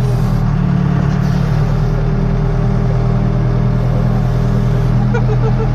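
Case 580 Super K backhoe's four-cylinder diesel engine running steadily at a constant speed.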